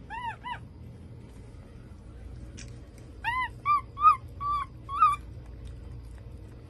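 Capuchin monkey calling: two short high calls that rise and fall in pitch at the start, then a quick, louder run of about six more around the middle.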